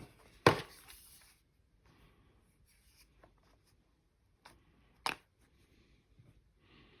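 Hands handling a pair of Bose QC35 II headphones: a sharp plastic click about half a second in, followed by a second of rustling, then light rustling and two more clicks around four and a half and five seconds in.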